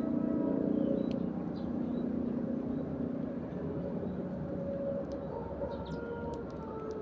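Sparrows chirping in short scattered calls over the steady low drone of a passing vehicle. The vehicle's drone includes long held horn-like tones that fade midway and return about five seconds in.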